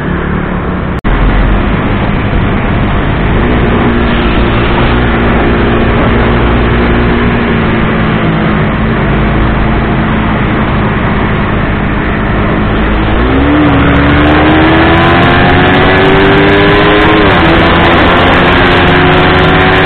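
Small single-cylinder motorcycle engine under way, with heavy wind rush on the microphone. About two-thirds of the way in it accelerates, its pitch climbing, then drops back at a gear change and carries on higher.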